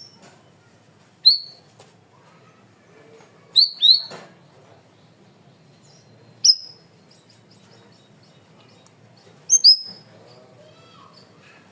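Cucak rawis (bayeman) songbird calling: short, loud, sharp notes that drop quickly in pitch, given singly or in quick pairs every few seconds, with faint softer chirps in between.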